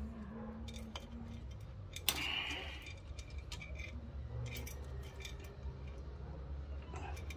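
Scattered metallic clicks and clinks of hand tools and engine parts during a motorcycle engine teardown, with one sharper, ringing clink about two seconds in.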